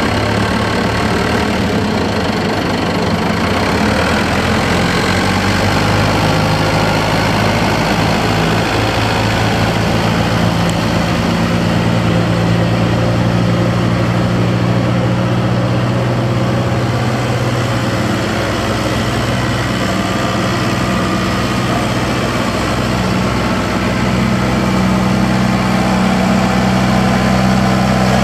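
New Holland TT75A tractor's diesel engine running steadily at low speed while the tractor is driven, its engine speed shifting slightly a few times.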